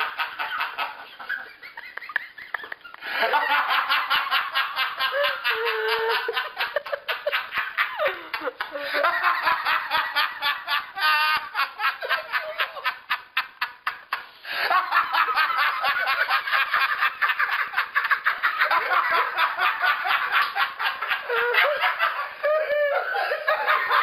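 Men laughing hard together in long runs of rapid ha-ha-ha, with a couple of brief lulls, about two seconds in and again just after the middle. This is a deliberate group laughter exercise that has turned into real, helpless laughing.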